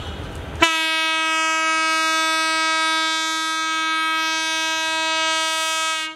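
Diesel locomotive's air horn sounding one long steady blast, starting sharply about half a second in and cutting off abruptly after about five and a half seconds: the departure signal of a passenger train about to leave the station.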